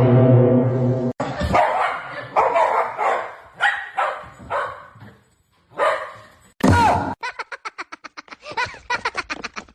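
A dog barking repeatedly, roughly two barks a second, then after a short pause one loud bark followed by a quick run of short yips.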